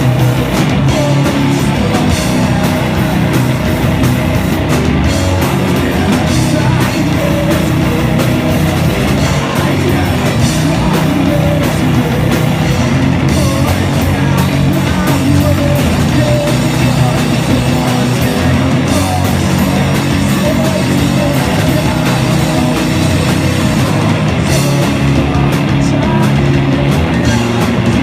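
Loud live punk rock band playing without a break, a dense wall of distorted guitar, bass and drums.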